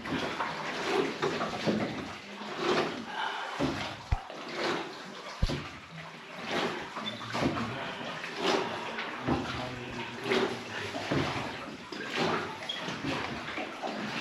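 Oars of a small rowed boat dipping and pulling through the water, a splash about every second, echoing inside a low cave. Two sharp knocks a little over a second apart about four seconds in.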